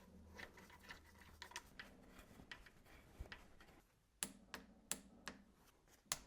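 Faint, light metallic clicks and ticks of bolts and a locking tool being handled and threaded by hand on the engine's timing-chain end. The audio drops out briefly about four seconds in, and a few sharper clicks follow.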